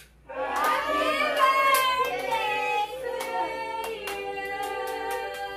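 A group of women and children singing together, starting a moment in, with hand clapping keeping a steady beat about twice a second.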